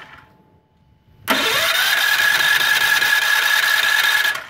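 Electric starter of a MultiPro Expert gasoline generator cranking its engine, with the choke on for a cold start. It starts about a second in, rises briefly in pitch and then holds a steady whine for about three seconds before cutting off abruptly.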